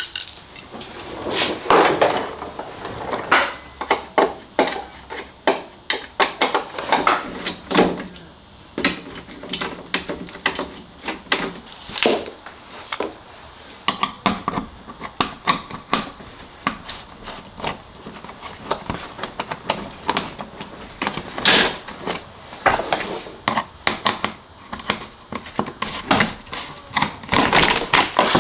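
Irregular clatter of knocks and clicks, with a few louder sharp knocks about a second in, around 12 seconds in and about 21 seconds in: hand tools and plastic and metal parts being handled.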